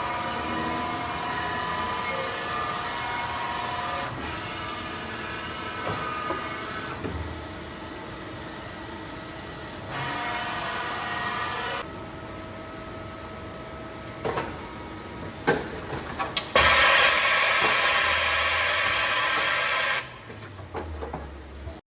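Makino GF-6 vertical machining center running through its functions: stretches of steady whirring and hiss that switch on and off, a few clicks and knocks about two-thirds of the way in, then a loud hiss for about three seconds near the end.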